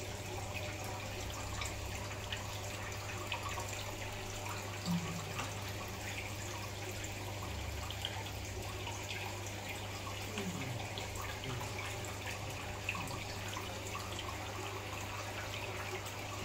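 Water trickling and dripping, with many small light drips over a steady low hum.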